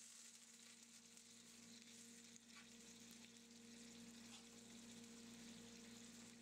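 Faint sizzling of onion, chili and spices cooking in freshly added water in a non-stick frying pan while a spatula stirs them, over a steady low hum.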